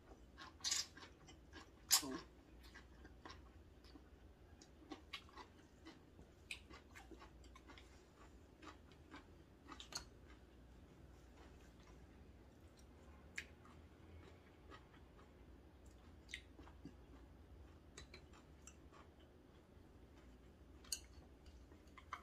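A person slurping a mouthful of cold noodles, loudest twice in the first two seconds, then chewing quietly, with scattered small clicks from the spoon and chopsticks against the bowl.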